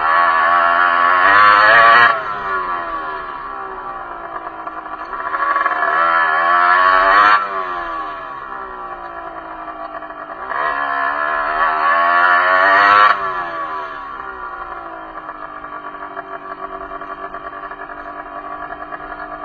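Derbi enduro motorcycle engine revving up under throttle three times, each time the throttle closes abruptly and the revs fall away in a long glide before it picks up again.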